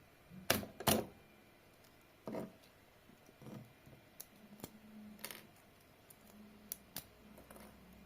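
Scattered light clicks and taps of hard 3D-printed plastic being handled, with the two loudest about half a second and a second in and more at irregular intervals after.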